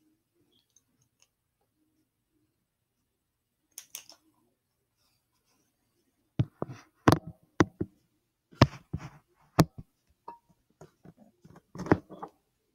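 A run of sharp, irregular clicks and knocks from a plastic View-Master stereo viewer and its reel being handled. The clicks start about six seconds in, after near quiet, with one faint click just before.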